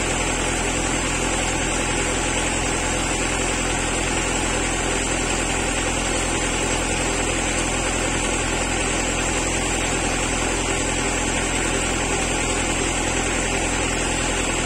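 A steady engine-like drone with a low hum and constant hiss, unchanging throughout.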